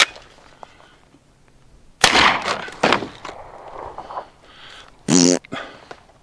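A 9mm shot fired at a water jug, a 130 grain Federal Syntech round, about two seconds in, followed by a second sharp crack just under a second later. A brief vocal exclamation comes near the end.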